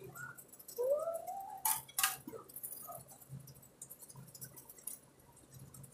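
A short rising wordless vocal sound about a second in, then two brief sharp crackles and a few faint ticks as toilet-paper strips and a hair tie are handled.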